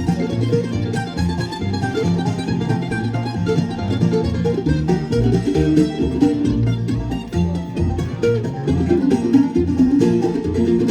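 Bluegrass band playing an instrumental break between sung parts: fast picked banjo, guitar and mandolin over a bass line stepping note by note.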